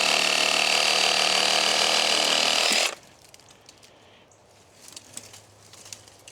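Electric power tool running at a steady, constant pitch for about three seconds, then cutting off abruptly. A few faint clicks follow.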